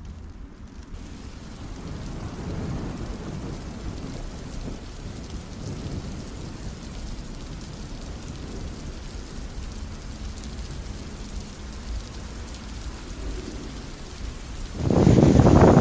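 Steady rain with a low rumble of thunder underneath. Near the end a much louder gusting, wind-like noise cuts in abruptly.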